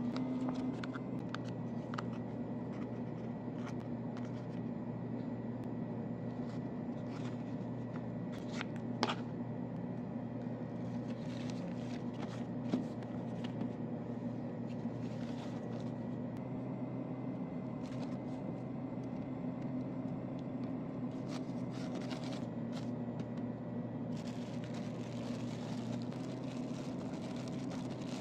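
Steady low hum under scattered light rustles and clicks of a tuna pouch being handled. Near the end, a few seconds of crinkling from a thin plastic bag wrapped around a slice of bread.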